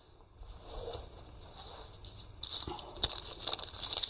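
Paper receipt rustling and crinkling as it is handled, starting about halfway through, with a couple of light clicks of small items being set down.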